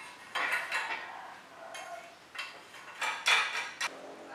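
A series of light metallic clinks and rattles from bicycle headset parts as the steel fork steerer is seated in the head tube and the threaded headset cup and bearing race are fitted by hand. The loudest clinks come a little past three seconds in.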